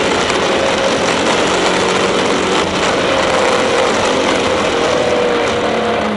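Porsche 996 Turbo-based twin-turbo flat-six running hard at steady high revs, heard from inside the cabin with heavy road and wind noise.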